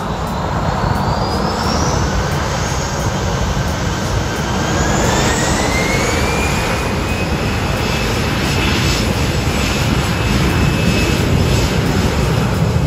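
Citilink Airbus A320's jet engines spooling up to takeoff power at the start of its takeoff roll: a rising whine that levels off about seven seconds in, over a steady low rumble.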